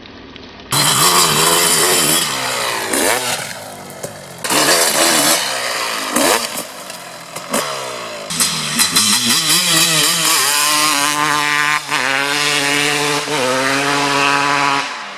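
Kawasaki KX250 single-cylinder two-stroke dirt bike engine, breathing through an FMF Gnarly expansion chamber and Pro Circuit Shorty silencer, revved hard again and again. It jumps from a low running note to full revs under a second in, the pitch sweeping up and down with brief drops, then holds steadier with quick blips near the end.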